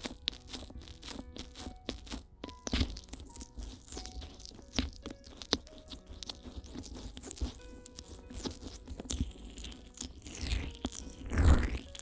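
Fingers massaging ears slick with petroleum jelly right at binaural microphones, making dense sticky crackles and squelches, with soft background music. Near the end a louder muffled rush swells up, as when a palm covers or cups the ear.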